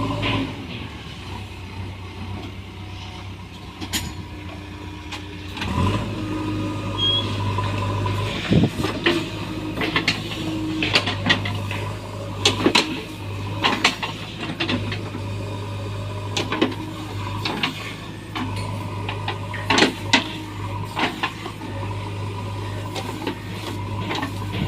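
JCB backhoe loader's diesel engine running steadily at a low drone, with repeated sharp knocks from the working machine.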